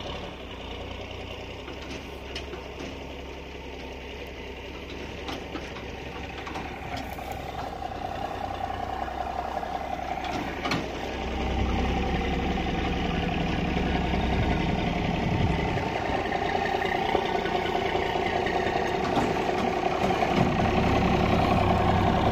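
Truck engine running slowly while reversing a long wagon, getting louder about halfway through as it pulls harder.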